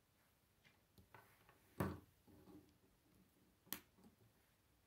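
K'nex plastic pieces clicking as they are snapped together and knocking against the wooden tabletop. The sharpest snaps come about two seconds in and again nearly four seconds in, with softer ticks between.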